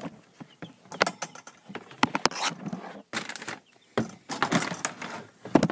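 Handling noise around a brooder: a run of sharp knocks, clicks and rustles as the metal clamp heat lamp and the plastic brooder bin are moved about.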